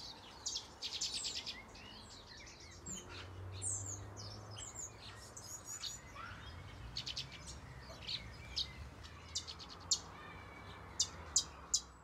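Many small aviary birds chirping and calling at once, short high chirps and quick trills overlapping, with a few sharper chirps near the end.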